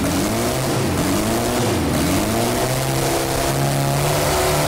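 Lada's carbureted four-cylinder engine, running with its crankshaft counterweights and webbing cut off, revving in quick throttle blips that rise and fall about three times, then held at steady higher revs. It picks up revs quickly, rev-happy with the lightened crankshaft.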